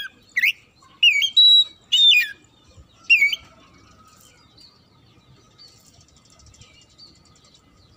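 Oriental magpie-robin (kacer) singing: four loud, sharp whistled phrases that sweep up and down in pitch over the first three and a half seconds, then soft, faint twittering.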